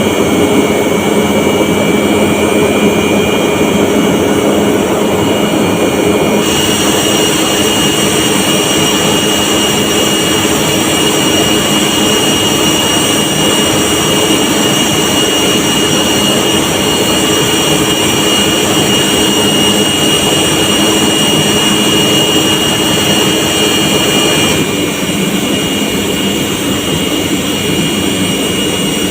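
Large industrial electric air compressors running loudly: a steady machine drone with high, even whines. The tone of the drone changes abruptly about six seconds in and again near the end.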